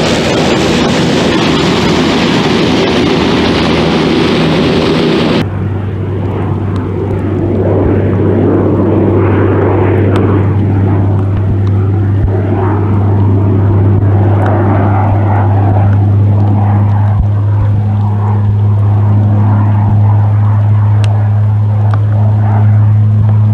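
Epic LT single-engine turboprop with its Pratt & Whitney PT6A-67A turbine running, heard from the ground. First a broad rushing engine noise, then after an abrupt change about five seconds in, a steady low propeller drone as the aircraft flies across, growing slightly louder.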